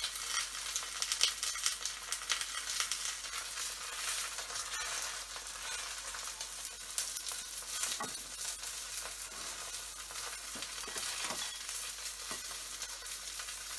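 Thin bánh xèo rice-flour crepe sizzling and crackling in hot oil in a nonstick wok as it browns and crisps, with a few light spatula touches against the pan.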